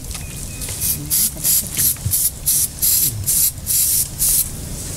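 A rapid series of short hissing spray bursts, about three a second, starting about a second in: a hand-held spray of medicine being worked onto the elephant's leg wound.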